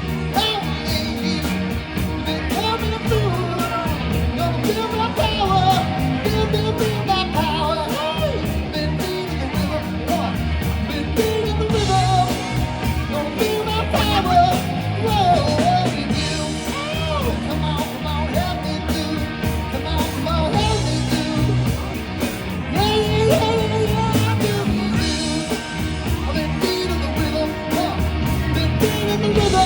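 Rock band playing with a lead singer: vocals over guitar, bass and drums, a steady groove without a break.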